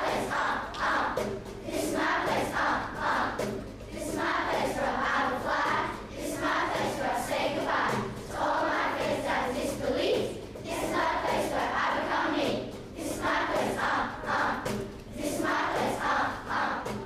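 A school children's choir singing a song with instrumental backing.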